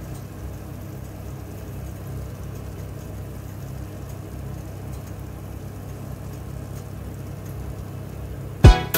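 Steady low mechanical hum. Near the end, a deep drum hit that falls in pitch as music begins.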